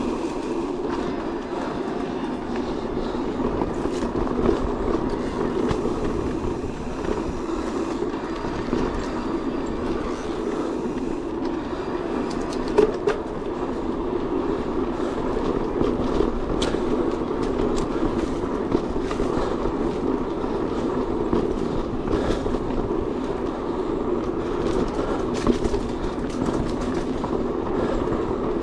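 Steady rumble of a Decathlon Stilus electric mountain bike's tyres rolling over a trail while riding, with scattered sharp clicks and knocks as it goes over bumps.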